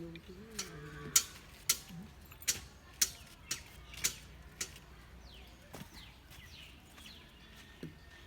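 Sharp clicks repeating about twice a second, thinning out after about five seconds, with a brief low voice-like sound at the very start.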